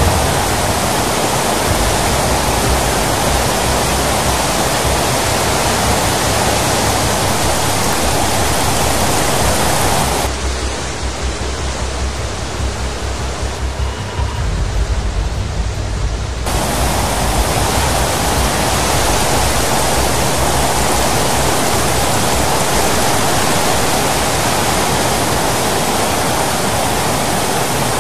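Dam spillway discharge: water rushing out of open floodgates as a steady, loud roar with a deep rumble beneath it. About ten seconds in it turns duller and slightly quieter for about six seconds, then the full rushing sound comes back.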